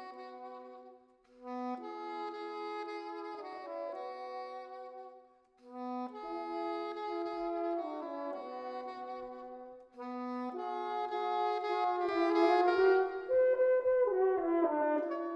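Soprano saxophone and French horn playing a duet: two melodic lines of held notes in phrases, with short breaks between the phrases and the fullest, loudest passage in the last few seconds.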